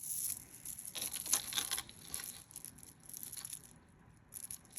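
Packaging crinkling and rustling as it is handled, in irregular bursts that are busiest in the first two seconds and thin out afterwards.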